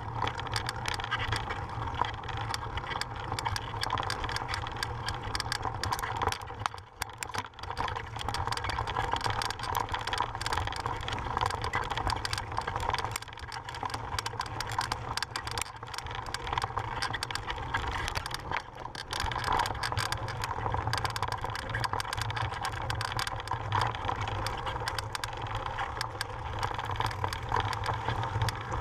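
Mountain bike rolling fast over a rough dirt and gravel trail: continuous tyre crunch with the bike and camera rattling over the bumps, and steady wind rumble on the microphone. The noise drops briefly about seven seconds in.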